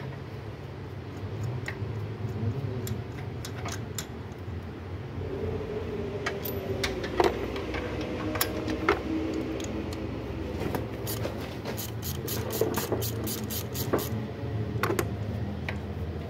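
Hand tools clicking and clattering against metal during work on a car's engine, with a steady low hum underneath. The clicks are scattered, with a quick run of them about eleven to fourteen seconds in.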